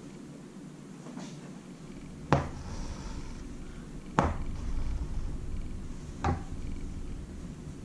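Needle and cotton embroidery thread working through fabric stretched taut in a wooden embroidery hoop. Three sharp ticks come a couple of seconds apart, with a low steady rubbing between them as the thread is drawn through.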